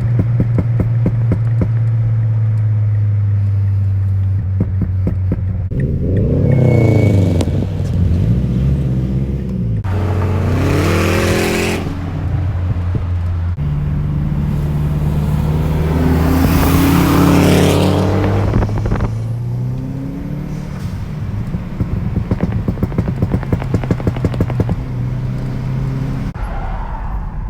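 Subaru Forester XT's turbocharged flat-four running through an HKS Hi-Power exhaust, idling with a pulsing rumble. It is revved up three times, about six seconds in, about ten seconds in, and a longer rev held for a few seconds from about fourteen seconds, dropping back to idle after each.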